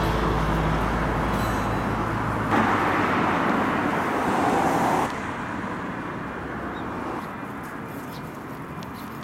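Road traffic: cars driving past. A louder vehicle goes by from about two and a half seconds in, and the sound drops suddenly about five seconds in to a lower, steady traffic noise.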